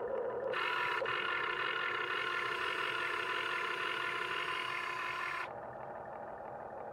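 Miniature RC excavator running with a steady, whining motor drone that drops and thins about five and a half seconds in.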